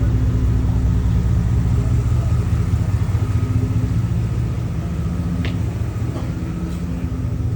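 A steady low motor rumble with an even hum. A brief sharp high sound cuts in about five and a half seconds in.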